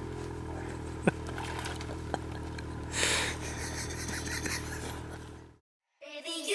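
Snowmobile engine idling steadily, with two sharp clicks about one and two seconds in and a brief rush of noise about three seconds in. It cuts off suddenly near the end.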